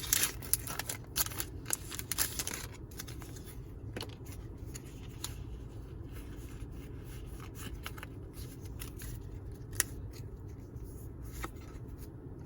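Foil booster-pack wrapper crinkling and rustling in the hands for the first two seconds or so, then faint, scattered soft clicks of trading cards being handled.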